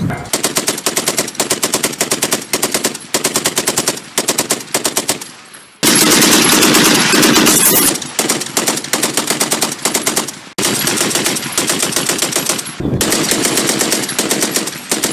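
Water-cooled 1918 Vickers Mk I machine gun in .303 British firing long full-auto bursts at a steady, rapid rate. Sudden cuts join several stretches of fire, and a louder, unbroken stretch comes about six seconds in.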